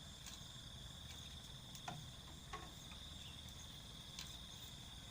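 Crickets trilling: one steady, high, unbroken tone, faint, with a couple of soft short taps about two seconds in.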